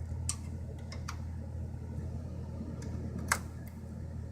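Steady low hum of a newly built desktop PC's fans running, with a few sharp clicks, the loudest about three seconds in.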